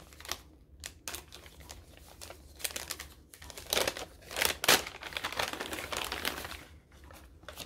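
Wrapping on a small gift-wrapped package crinkling and tearing as it is opened by hand, in irregular rustling bursts that are loudest about halfway through.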